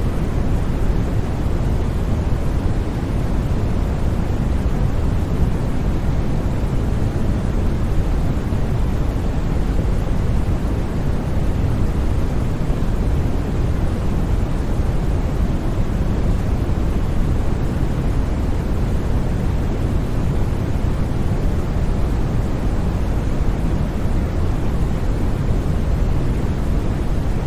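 Continuous sleep-aid white noise: a steady, unchanging rush, deeper in the bass than in the hiss.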